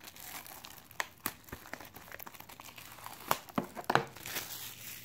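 Thin clear plastic shrink-wrap being peeled off a cardboard trading-card box, crinkling irregularly, with a few sharper crackles about three to four seconds in.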